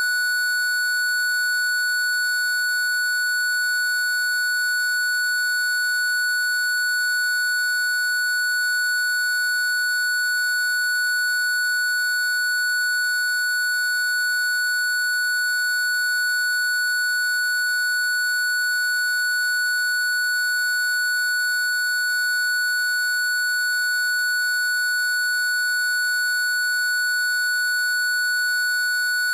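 Parking sensor warning sounding as one continuous, unbroken high tone with no gaps between beeps: the solid tone that signals an obstacle at the nearest distance.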